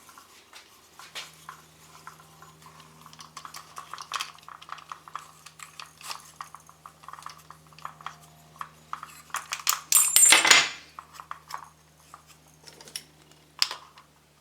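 Small metal and plastic parts clicking and rattling as they are handled and fitted together, with a louder, ringing metallic clatter about ten seconds in. A faint steady low hum runs underneath.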